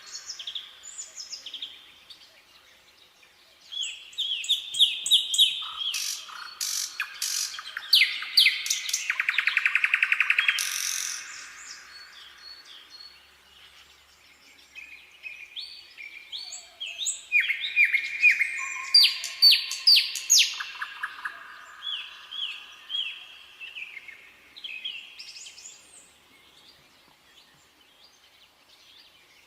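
Nightingale singing: phrases of repeated whistled notes, sharp clicks and a fast rattling trill, with pauses of a few seconds between phrases.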